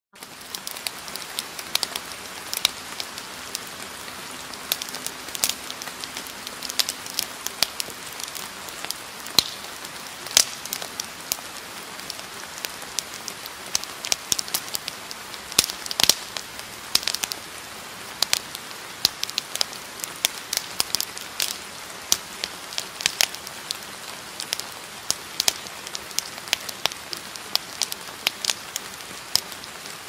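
A steady hiss dotted with irregular sharp crackles and pops, several a second, like a rain or fire ambience track.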